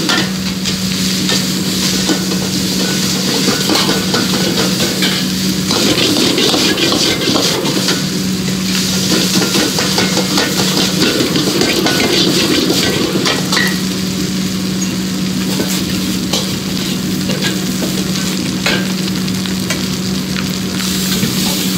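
Fried rice sizzling in a hot wok over a gas burner while a metal wok ladle scrapes and clinks against the pan, stirring it. A steady low hum runs underneath.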